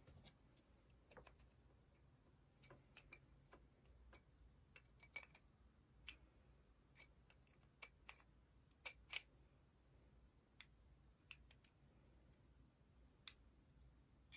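Faint, scattered clicks and taps of small plastic and metal parts of an AAP-01 airsoft pistol being handled and fitted together during assembly, the loudest two close together about nine seconds in.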